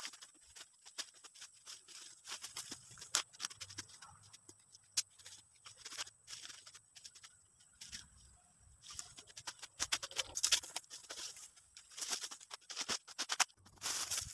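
Footsteps and rustling through dry leaves and brush: irregular crackles and snaps of undergrowth being pushed through and trodden on.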